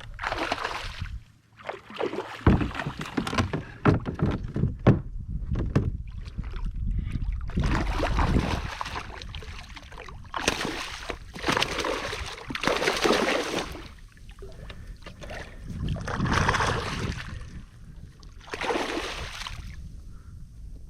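Water splashing and sloshing beside a kayak in irregular surges as a hooked big speckled trout is fought at the surface, with a run of sharp knocks a few seconds in.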